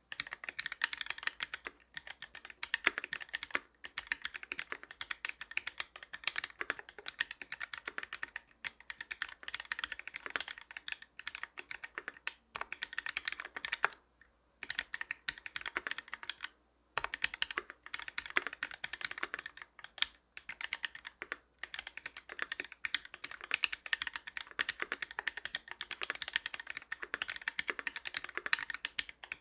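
Custom mechanical keyboard with a brass plate, lubed linear Gateron Milky White switches on 57 g springs and GMK keycaps, being typed on in quick runs of key clicks. The runs are broken by short pauses, the longest a little before and after the halfway point.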